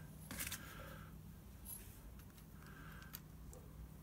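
Metal hand tools, a wrench and a screwdriver, clinking as they are picked up off a bench: a sharp clatter about half a second in, then a few lighter clicks, over a faint steady low hum.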